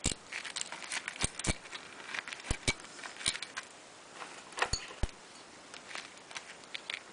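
A series of irregular sharp clicks and light metallic knocks as a small engine's ignition coil and its metal bracket are handled, metal tapping against metal.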